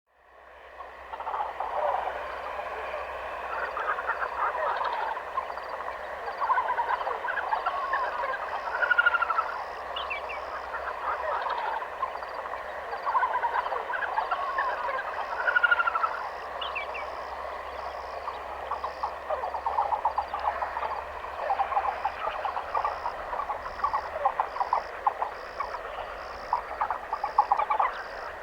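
Wetland nature ambience of a frog chorus: many overlapping croaking calls with a high chirp repeating about once a second, fading in from silence at the start.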